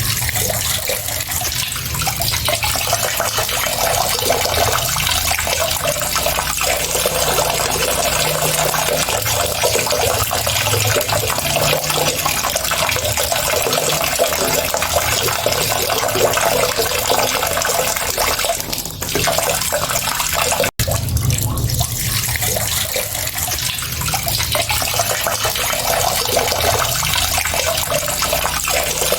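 Steady running water, splashing and flowing continuously like a tap running into a sink. It cuts out for an instant about two-thirds of the way through, then carries on unchanged.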